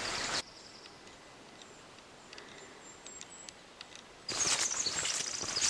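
Faint, high, short bird chirps over a quiet forest background. About four seconds in, louder footsteps on a trail begin, with the birds still calling.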